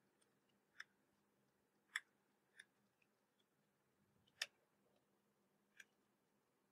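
Near silence with about five faint, isolated computer keyboard key clicks at irregular intervals.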